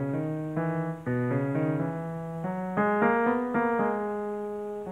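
Yamaha portable keyboard played with one hand in its lower-middle range. Notes follow one another about every half second and are held so that they overlap into chords.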